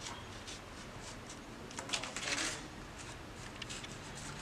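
Utility knife blade slicing through paper along a traced outline: a run of short scratchy strokes, with a louder burst of cutting about two seconds in.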